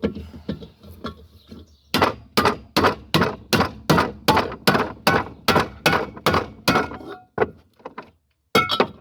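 A metal cooking pan being struck over and over: about a dozen loud, evenly spaced blows, two to three a second, then a few lighter taps and two more blows near the end.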